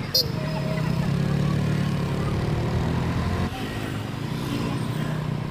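Engine of a moving auto-rickshaw running steadily through city traffic, with road noise. A brief sharp sound comes just after the start, and the engine note shifts about three and a half seconds in.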